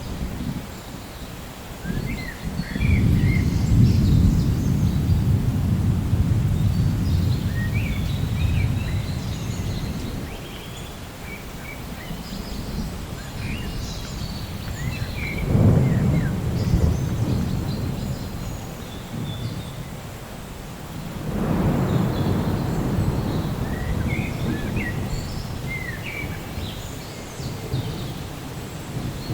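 Thunderstorm: three long low rolls of thunder, about three seconds in, around fifteen seconds in (with a sharper onset) and about twenty-one seconds in, each swelling and fading slowly over a steady hiss of rain.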